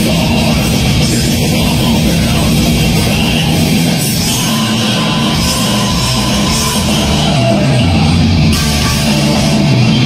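Live heavy metal band playing at full volume: distorted electric guitars, bass and drums.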